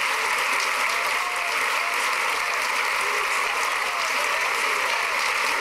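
A crowd applauding steadily, with a few faint voices among the clapping.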